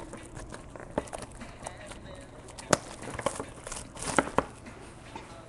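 Plastic shrink wrap being torn and crinkled off a trading-card box, with scattered crackles and a few sharp clicks. The sharpest click comes a little under three seconds in, and another pair about four seconds in.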